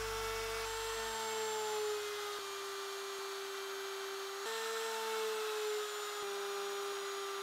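Horizontal slot mortiser's spinning bit cutting a mortise in cherry: a steady high motor whine that dips slightly in pitch twice as the bit takes load in the wood.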